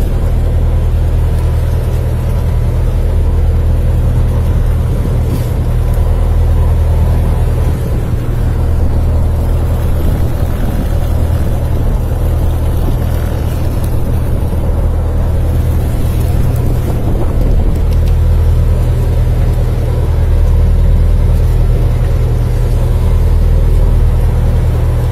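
A boat engine running steadily, a continuous low drone heard from on board.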